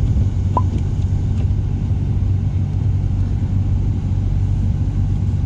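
Steady low rumble of a car driving slowly on a snowy road, heard from inside the cabin: engine and tyre noise.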